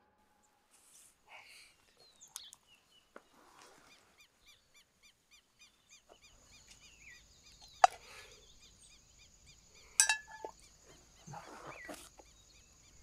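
Quiet countryside ambience: small chirps repeating at an even pace of about three a second, a steady high tone from about halfway, and rustling of a person moving on dry grass, broken by a couple of sharp clicks.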